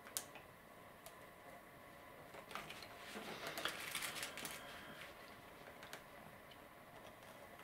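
Faint clicks and a light rattle of glass-headed pins in a small plastic pot as one is picked out, with quiet handling clicks of pins being pushed in. The busiest rattling comes about three to four seconds in.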